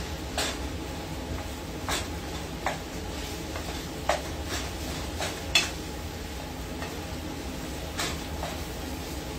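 Plastic spatula tapping and scraping against a metal pot while breaking up ground beef as it starts to brown. The taps come at irregular intervals, the sharpest about five and a half seconds in, over a steady low hum.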